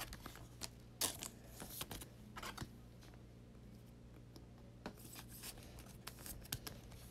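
Faint rustling and light clicks of trading cards and plastic card sleeves being handled, a few at a time with a small flurry near the end, over a low steady hum.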